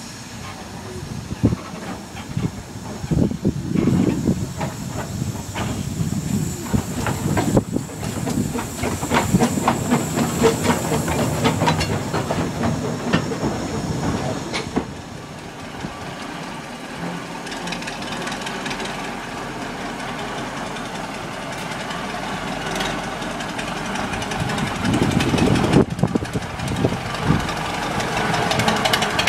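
Narrow-gauge steam locomotive moving on the station tracks: steam hissing with a fast run of clicks and exhaust beats through the first half, then a steadier hiss. Near the end the engine of a small diesel locomotive grows louder as it approaches.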